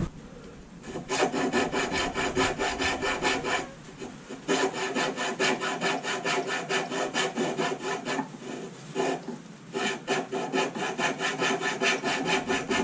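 Hand fretsaw cutting through the wooden tail of a carving with quick, even back-and-forth strokes, several a second. It starts about a second in and pauses briefly twice.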